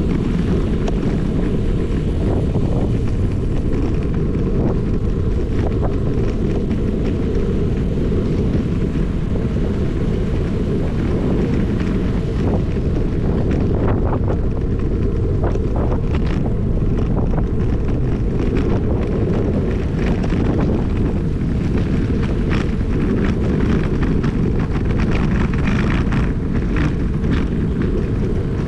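Wind buffeting the microphone of a rider on a moving bicycle: a steady low rumble, with a few faint clicks and rattles over it.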